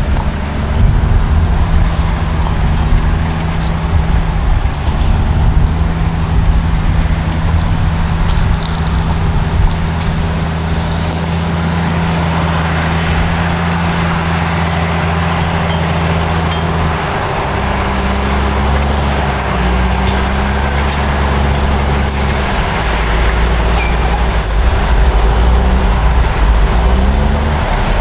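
Diesel engines of Caterpillar crawler bulldozers running hard under load. The engine note changes a little over halfway through and rises in a few quick revs near the end.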